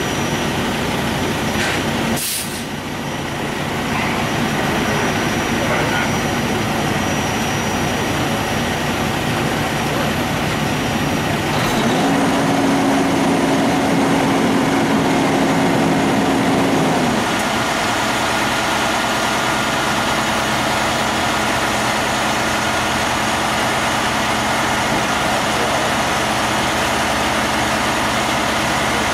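Heavy-duty wrecker tow truck's diesel engine idling steadily. There is a short sharp hiss about two seconds in, and a steady higher hum for about five seconds around the middle.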